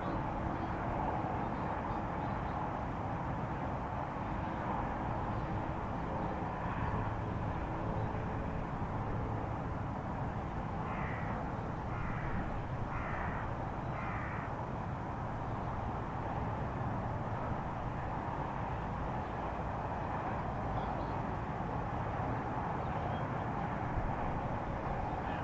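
Steady low rumble of outdoor background noise, with a bird calling four times, about a second apart, near the middle.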